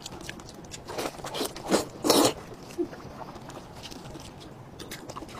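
Gloved hands tearing meat from a braised sheep's head, making a few short, wet tearing sounds about one to two and a half seconds in. The loudest comes just after two seconds.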